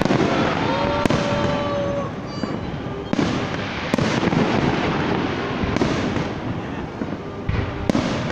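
Fireworks display: aerial shells bursting with a series of sharp bangs, about six in all, over continuous crackling.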